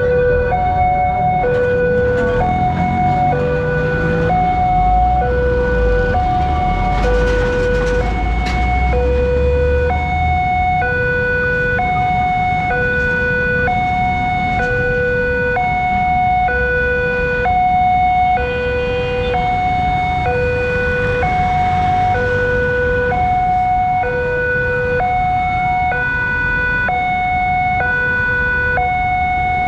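Railway level-crossing warning alarm sounding from a loudspeaker horn. It alternates steadily between a lower and a higher tone in a siren-like hi-lo pattern, warning that a train is coming and the barrier is down. A low vehicle rumble rises under it around a quarter of the way in.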